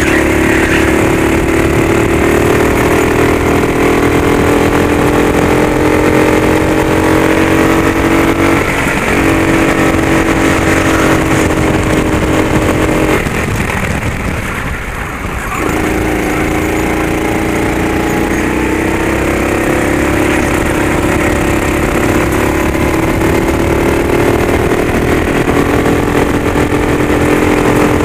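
Racing go-kart engine running hard, its note climbing slowly under throttle. It dips briefly about nine seconds in, then drops away for a corner from about thirteen to fifteen seconds as the driver lifts off, and comes back and rises again.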